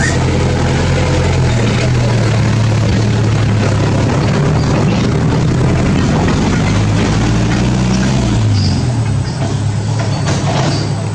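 A motor vehicle's engine running steadily at idle, with a low hum whose pitch dips and recovers about eight and a half seconds in.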